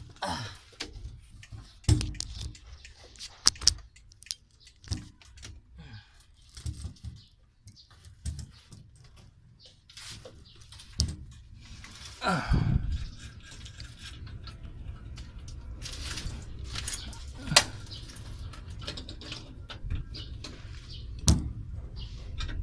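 Irregular clicks, knocks and rustles of hands and small metal parts at a metal jeep dashboard, as the two locks behind the temperature gauge are undone and the gauge is worked loose. A few sharper clicks stand out in the second half.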